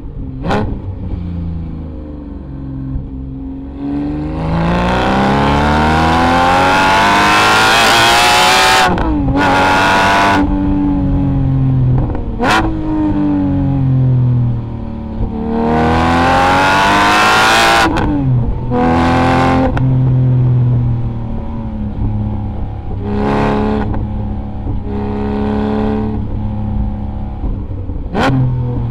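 Porsche 718 GT4's 4.0-litre flat-six through a Kline Innovation Inconel full exhaust with 200-cell catalytic converters, accelerating hard. The engine note rises steeply in two long pulls and drops with a sharp crack at each upshift, followed by shorter, lighter bursts of throttle.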